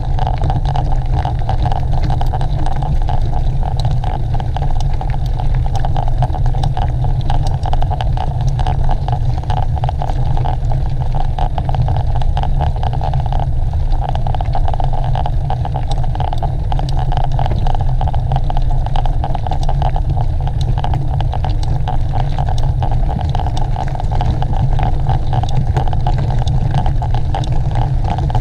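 Steady wind rushing over a moving camera's microphone, with a constant rattle of small knocks and clicks from riding over a rough course.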